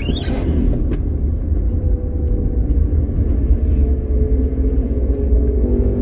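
Steady low engine and road rumble of a car driving, heard from inside the cabin, with a single click about a second in.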